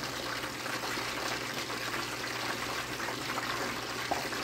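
Chicken frying in hot oil in a lidded pot on a gas burner: a steady sizzling hiss.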